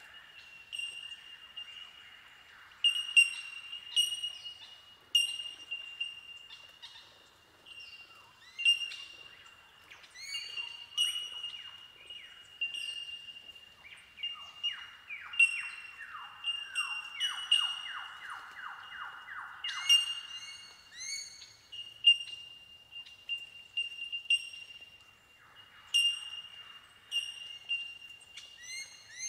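Colony of bell miners (bellbirds) calling, their ringing bell-like 'tink' notes overlapping into a steady windchime-like chorus, with louder single tinks every second or so. About halfway through comes a run of quick falling notes, roughly three a second, for a few seconds.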